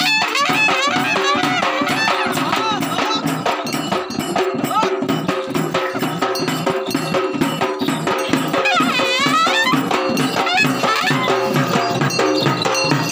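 Several cylindrical stick-beaten drums playing a fast, steady folk rhythm. A high wavering call rises and falls over the drumming about nine seconds in.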